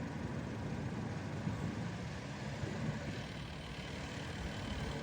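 Steady low rumble of road vehicles: traffic noise with engines running.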